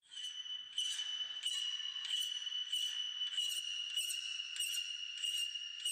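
Coarse-tooth hand file rasping across a steel part clamped in a bench vise: about nine even strokes, roughly one and a half a second, roughing flats onto a curved edge. A steady high metallic ringing sounds under the strokes.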